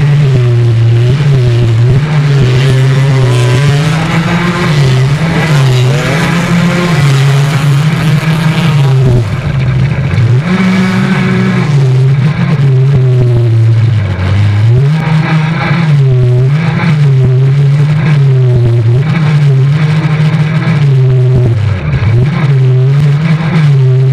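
Quad bike (ATV) engine heard close up from on board, revving hard and repeatedly rising and falling in pitch as the throttle is worked through the turns of a dirt trail, with brief drops when the throttle is backed off about ten seconds in and again near the end.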